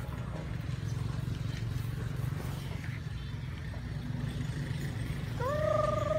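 A chicken gives one drawn-out, wavering call lasting about a second, near the end. Under it runs a steady low rumble.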